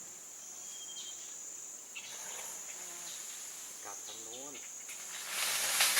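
Insects chirring steadily at a high pitch, with a faint wavering call about four seconds in. Near the end a loud rushing noise swells up over it.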